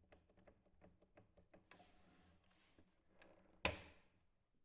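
Faint clicks and light handling noise from metal rack parts and tools, then one sharp knock about three and a half seconds in, with a short ring after it.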